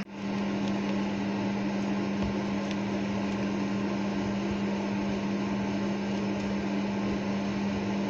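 Steady mechanical hum with a constant low drone; no distinct scraping strokes stand out from it.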